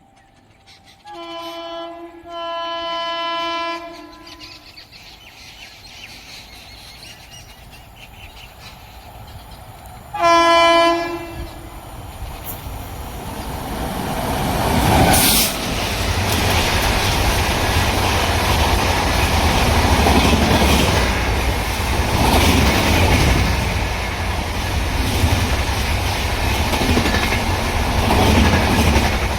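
Train horn sounding two blasts, then a short third blast, as a train approaches. The train then rushes past with a loud, steady rumble and clatter of wheels over the rail joints, after a sudden burst of noise as it reaches the spot.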